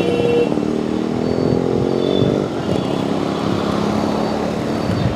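Busy road traffic close by: motorcycle and other vehicle engines running and passing, one climbing in pitch during the first couple of seconds before settling to a steady drone.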